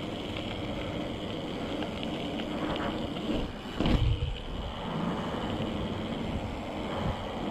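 BMX tyres rolling on asphalt and concrete, with wind noise on the action-camera microphone. About four seconds in there is a brief, loud low thump.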